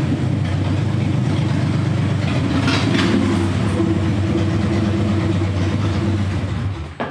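Harley-Davidson V-twin motorcycle engine running steadily, cutting off abruptly about seven seconds in.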